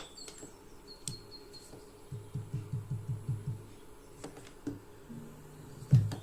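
Small birds chirping faintly and intermittently. A run of soft low thumps, about six a second, comes midway through, and louder low thumps start near the end.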